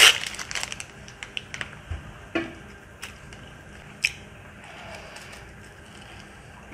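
Plastic snack wrapper crinkling as a small packet is opened, a run of crackles over the first couple of seconds, then a few separate crisp crunches as a cracker is bitten and chewed.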